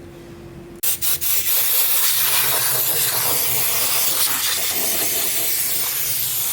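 Pressurised spray hissing steadily, starting abruptly about a second in with a few short spurts, as a carbon-clogged intake part is cleaned.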